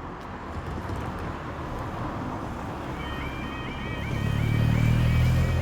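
Road traffic running past a level crossing; about three seconds in, the crossing's electronic warning alarm starts, a rapidly repeating high warbling yodel that marks the start of the barrier-closure sequence. A vehicle's low rumble swells and is loudest near the end.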